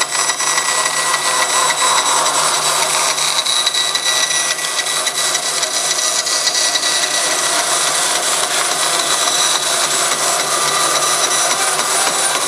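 Forrest Model 204 bandsaw, its one-inch, 3-tooth-per-inch hook tooth blade running at about 3,000 feet per minute, cutting steadily through the thick hard cardboard core of a wound polypropylene film roll. A continuous cutting noise with high, steady whining tones over it.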